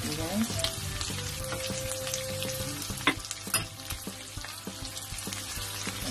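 Garlic and sliced onion sizzling in hot oil in a nonstick wok, stirred with a wooden spatula that scrapes and clicks against the pan. There are two sharper knocks a little past the middle.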